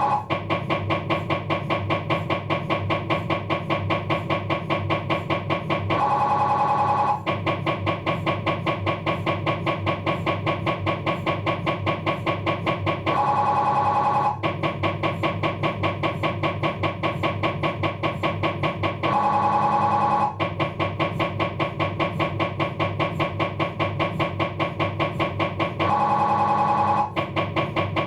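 Philips 1.5 T MRI scanner running an axial diffusion-weighted, navigator-triggered abdominal sequence. It makes a steady, rapid knocking, broken four times, about every six to seven seconds, by a loud buzzing tone lasting just over a second.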